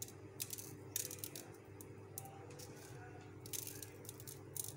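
Faint, scattered small ticks as sugar sprinkles are dropped by hand onto chocolate-glazed donuts and the ceramic tray, over a steady low background hum.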